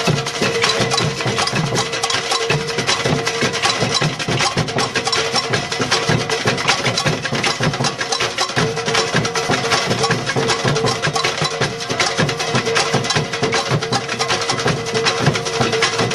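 Percussion music with many quick, dense strikes, going on without a break.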